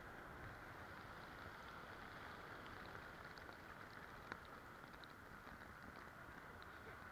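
Faint steady hiss of shallow seawater washing over sand at the waterline, with scattered small fizzing pops of foam bubbles bursting and one sharp tick a little past the middle.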